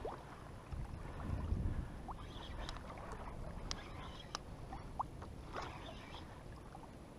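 Sea water lapping against a plastic kayak hull in swell, under a low noisy rumble, with a handful of light clicks and a few short rising squeaks scattered through.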